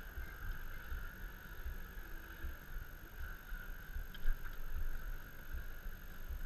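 Steady open-water background on a small fishing boat: a low, uneven rumble like wind on the microphone under a constant hiss, with a faint click about four seconds in.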